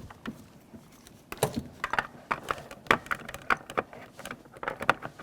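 Plastic wiring-harness connectors being handled and plugged back together in a truck door, a run of irregular sharp clicks and rattles starting about a second in.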